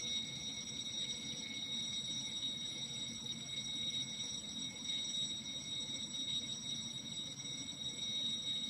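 Raspberry Pi alarm clock's alarm sounding through a speaker: one steady, high-pitched electronic tone, unbroken, the signal that the set alarm time has been reached.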